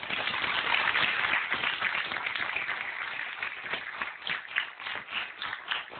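Studio audience applauding. The dense applause thins into separate, evenly spaced claps near the end.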